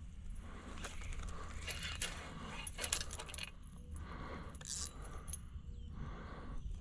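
Scattered light clicks and rattles, bunched about two to three seconds in, over a steady low rumble.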